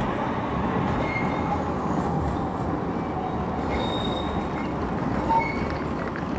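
A tram running past, its steel wheels squealing faintly on the rails over steady street noise.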